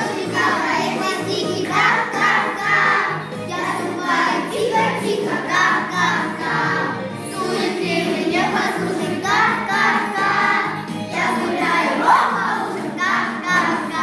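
A song: several voices singing together with musical accompaniment.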